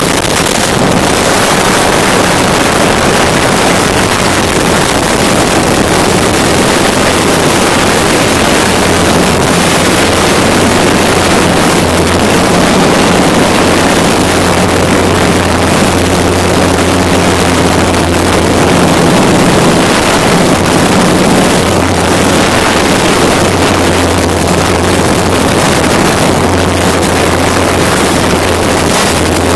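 Hexacopter's electric motors and propellers running at a steady hum, with the pitch shifting slightly now and then, heard close up with rushing wind on the microphone.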